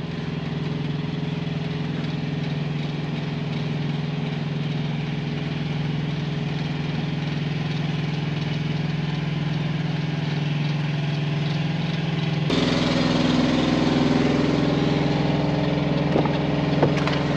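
Semi-truck diesel engine idling steadily. About twelve seconds in, the sound abruptly becomes louder and noisier.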